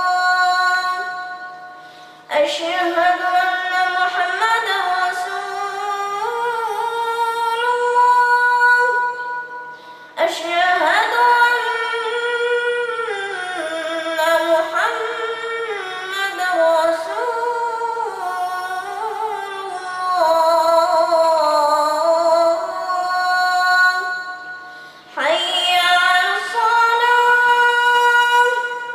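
A boy's high voice reciting the Quran in melodic tajweed, in long held phrases that bend up and down, with short pauses about two, ten and twenty-five seconds in.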